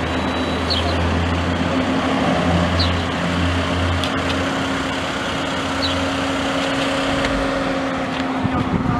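A car engine idling steadily, a low hum with a constant tone over it that swells a little about two to three seconds in.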